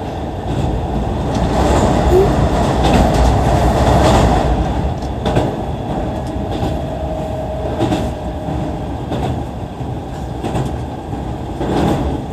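Electric train running over a river bridge, heard from inside the car: a loud steady rumble with a few sharp rail clicks.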